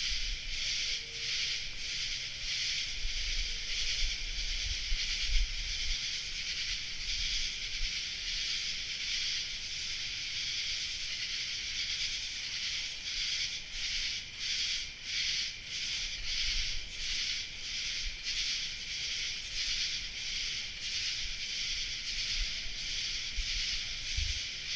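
A dense, high-pitched chorus of night insects singing, pulsing about three times a second. Faint low rumbles sit underneath in the first few seconds and again near the end.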